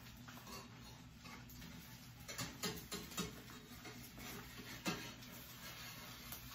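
Slotted metal spatula scraping and tapping against a frying pan as it is worked under the edges of an omelette, a few short scratchy clicks over a faint steady hum.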